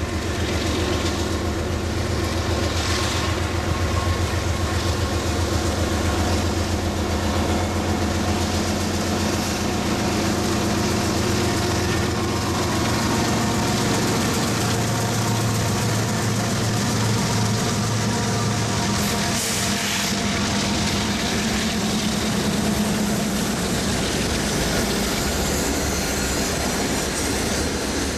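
CSX diesel freight locomotives running past close by, their engines a loud, steady low drone that weakens in the second half as the rumble of rolling freight cars takes over.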